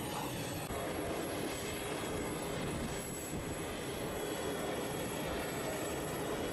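Steady engine rumble with hiss, even throughout, with no distinct knocks or other events.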